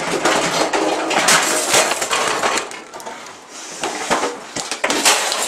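Kitchen things being thrown and smashed: a dense clatter and crash of dishes, pots and cutlery. It eases off briefly about halfway through, then clatters again.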